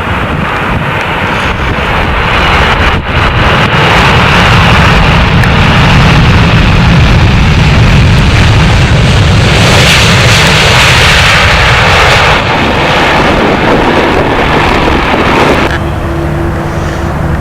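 Jet airliner passing close by: a loud engine rush that builds over the first few seconds, is at its loudest and hissiest around the middle, then drops off suddenly near the end to a lower hum with a steady tone.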